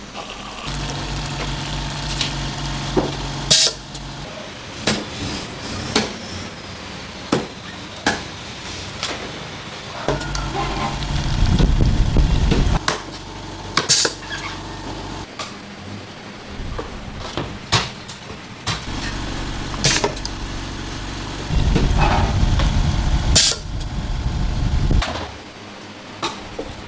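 A motor-driven machine running in several separate runs of a few seconds each, with sharp knocks in between, like hard strikes on a board or shell.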